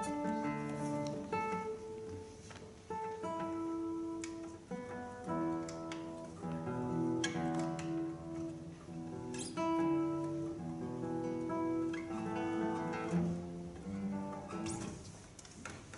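A classical guitar, mandolin and double bass trio playing a short Macedonian folk tune in quick plucked notes, growing quieter near the end.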